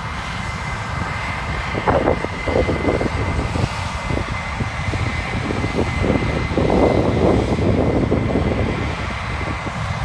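Self-propelled pea harvesters (pea combines) running in the field: a steady engine drone with a thin constant high whine, swelling louder about two seconds in and again around seven seconds.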